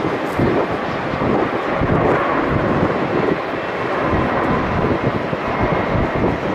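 Airbus A380 jet engines running as the airliner passes on landing, a steady roar with a faint high whine, mixed with gusty wind buffeting the microphone.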